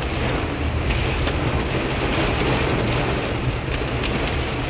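Heavy thunderstorm rain pelting a car's roof and windshield, heard from inside the cabin, with scattered sharp drop ticks over the steady low rumble of the car driving.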